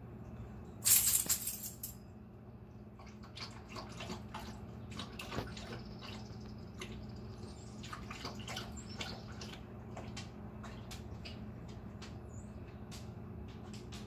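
Birds chirping and clicking in short, scattered calls, with a brief rushing noise about a second in, over a steady low hum.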